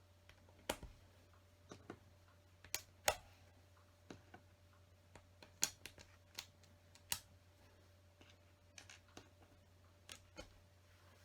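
LEGO pieces being handled and pressed onto a baseplate: irregular sharp plastic clicks and taps, with the loudest about three seconds in, over a faint steady hum.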